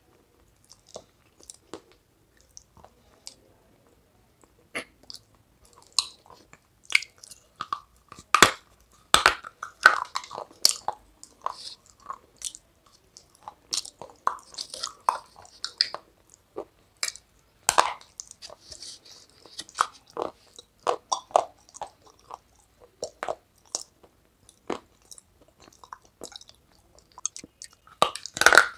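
Close-miked crunching and chewing of brittle clay pieces: a few faint clicks at first, then irregular sharp crunches, often several a second, from about five seconds in.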